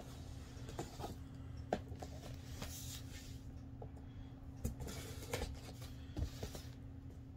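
Cardboard box packaging being opened by hand: scattered light taps, scrapes and short rustles of the box, over a steady low hum.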